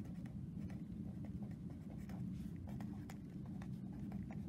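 A pen writing on lined notebook paper, with faint, short scratching strokes as the words are written, over a low steady hum.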